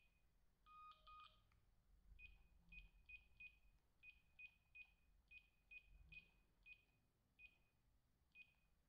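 Samsung SP-R5210pp cordless handset's key beeps as its menu buttons are pressed: a quiet string of short, high, single-pitch beeps, about two a second, with a longer two-tone beep about a second in.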